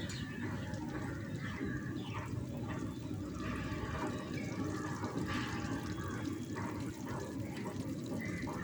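Onion and potato with ground spices and ginger-garlic paste sizzling in oil in a kadai while being stirred, with short irregular scrapes of the spatula against the pan. This is the kashano stage, frying the spice masala until the raw smell goes.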